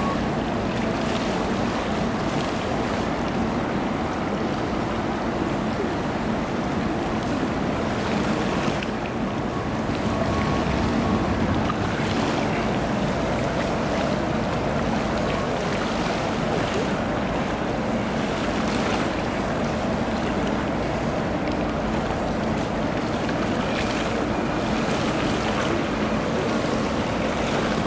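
Steady hum of ship engines under a continuous rush of water, with wind on the microphone.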